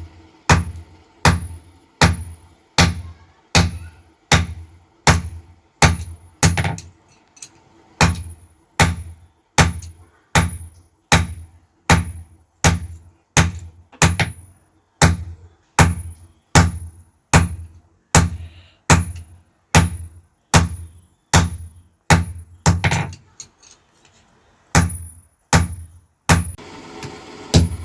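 Hammer blows forging iron on an anvil, each a dull thud with a high ring, struck at a steady pace of about three every two seconds, with a short break about three-quarters of the way through.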